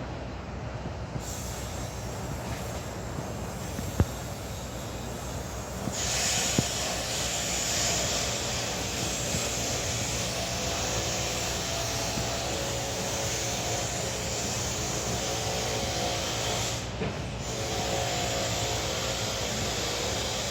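Steady machinery noise with a hiss, growing louder about six seconds in, with a faint wavering whine over it in the second half and a couple of sharp clicks.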